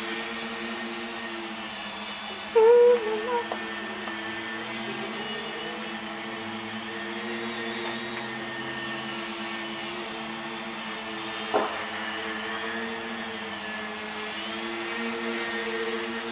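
RC tricopter's three electric motors and propellers buzzing steadily in hover, with a high whine on top whose pitch wavers slightly as the throttle changes. A brief, louder pitched sound about three seconds in, and a single sharp click just before twelve seconds.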